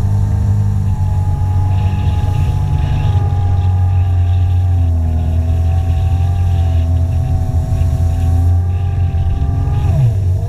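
Jet ski engine running steadily at speed, its pitch wavering a little and dipping briefly near the end.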